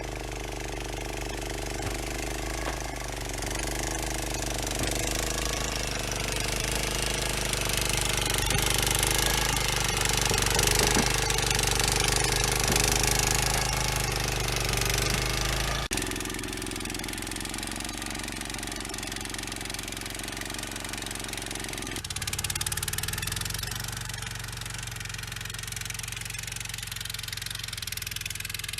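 An engine running steadily, its level and pitch shifting, with two sudden changes in the sound partway through.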